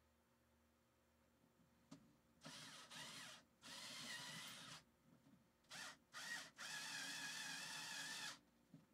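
Cordless drill/driver driving M3 machine screws into brass standoffs, its motor whining in five short bursts: two of about a second each starting about two and a half seconds in, two quick blips, then a longer run of nearly two seconds.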